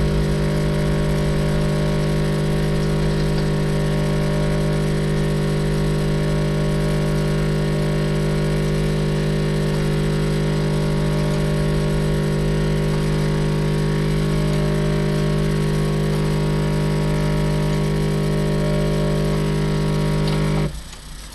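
Capsule coffee machine's pump running with a steady hum that cuts off suddenly near the end. It is pushing hot water through: the machine keeps dispensing warm water, and the owner is unsure why.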